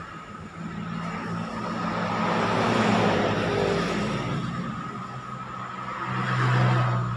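Road traffic: motor vehicle engines passing, the sound swelling twice, about three seconds in and again near the end.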